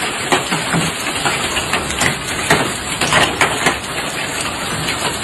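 Hail falling hard: a dense, steady rush of hailstones landing, with frequent louder single strikes scattered irregularly through it.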